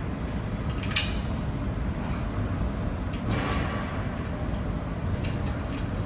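Small metal clicks and ticks, with one sharp clink about a second in, as 5/16 bolts and nuts are fitted by hand into the nose piece of a steel drum cradle frame. A steady low background hum runs underneath.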